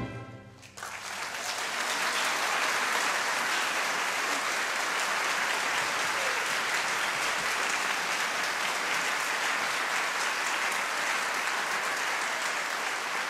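The orchestra's last chord dies away, then audience applause breaks out under a second in and continues steadily.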